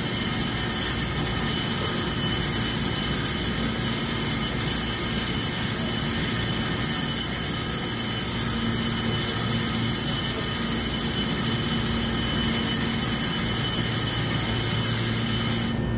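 Station platform departure bell ringing steadily and cutting off suddenly near the end, the signal that the train's doors are about to close.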